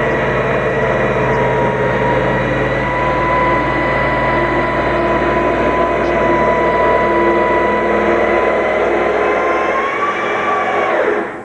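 A machine running steadily with a low hum and a constant high whine, cutting off suddenly near the end.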